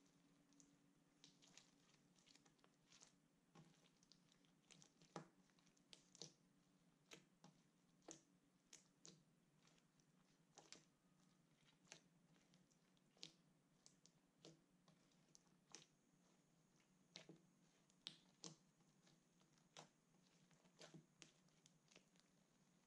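Faint, sticky pops and squelches of clear slime mixed with eyeshadow being kneaded and squeezed by hand, irregular and about two a second.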